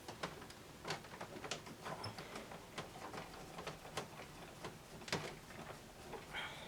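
Irregular light clicks and taps, about two a second.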